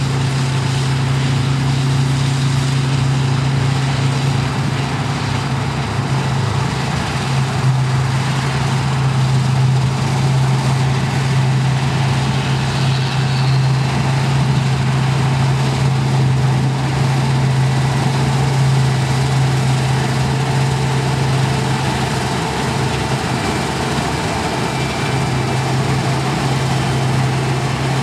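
New Holland CX8050 combine harvester running steadily while cutting and threshing wheat: a constant low engine drone over a dense mechanical rush.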